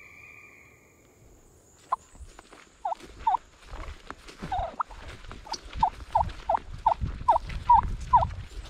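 Wild turkey hen yelps: a long run of short, loud yelps, about two to three a second, starting about three seconds in, with footsteps in the grass beneath.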